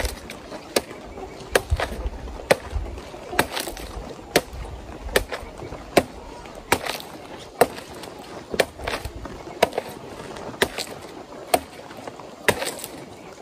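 Sharp knocks repeating about once a second in an even rhythm, a few of them doubled.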